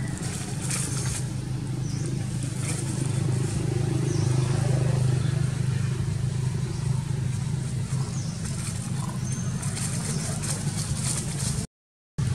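A steady low hum, with light rustling of dry leaves and a few faint, short high chirps over it; the sound cuts out for a moment near the end.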